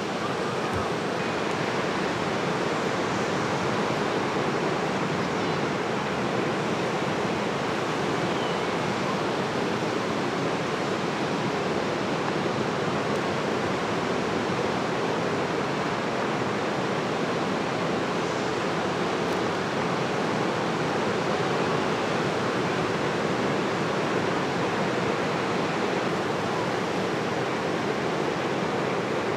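Ocean surf breaking and washing up on a beach: a steady, even rush of waves.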